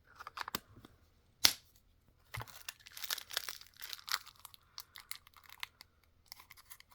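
Plastic packaging being handled: a single sharp click about a second and a half in, then a few seconds of crinkling and rustling.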